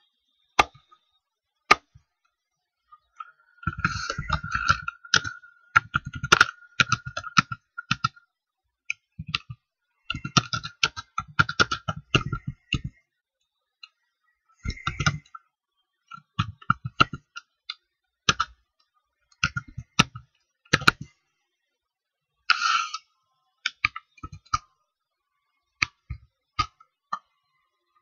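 Typing on a computer keyboard: quick runs of keystrokes broken by pauses, with scattered single clicks in between.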